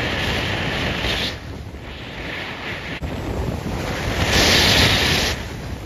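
Gusty storm wind buffeting the microphone, a steady rushing roar that eases about a second and a half in and picks up again near the end.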